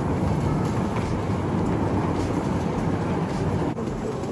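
Steady rumble of rolling suitcase wheels on a tiled floor, cutting off suddenly near the end.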